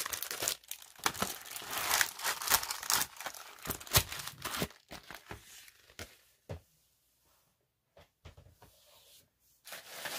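Packaging being handled and torn, rustling and crinkling, with a sharp snap about four seconds in. After that come a few scattered light clicks, and rustling picks up again near the end.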